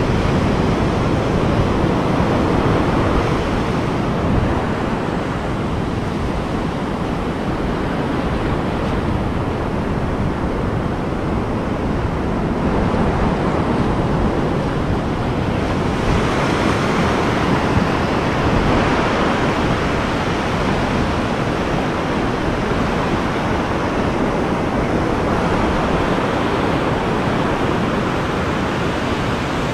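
Ocean surf breaking and washing up over the sand in a continuous rush, swelling and easing slowly.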